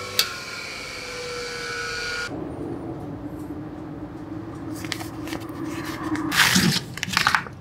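Bench grinder with a polishing wheel coasting down after being switched off: a fading whine that falls slightly in pitch, with a click just after the start. Later a steady low hum, and near the end the crinkling of a plastic sleeve holding a whetstone as it is handled.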